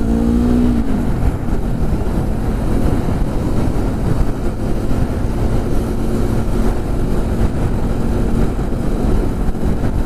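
Wind rushing over the microphone of a moving motorcycle, a loud steady low rush with the bike's engine running underneath.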